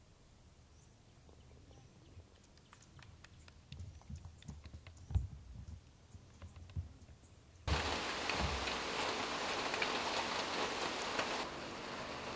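Steady hiss of rain falling, starting abruptly about two-thirds of the way in and easing a little near the end. Before it there are only faint low thumps and scattered light ticks.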